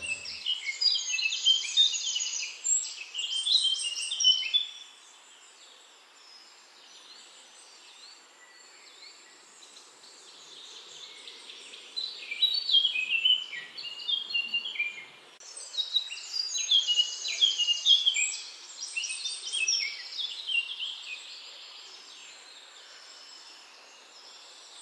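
A bird singing in quick, varied chirping phrases: one run at the start, then a longer run from about twelve seconds in to about twenty, with faint outdoor background hiss in the gaps.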